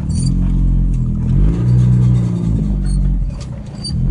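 Dodge Ram 50 pickup driving uphill under acceleration, engine and drivetrain running with pitch rising and falling, and a few short faint high-pitched squeaks. It is an unidentified metallic squeal/grinding that speeds up with the truck, comes on when accelerating and not in reverse.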